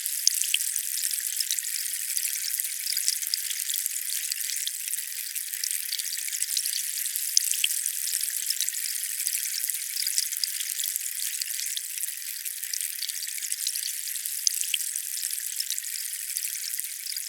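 Water running or splashing as a steady thin hiss with small crackling ticks scattered through it and nothing deep in the sound.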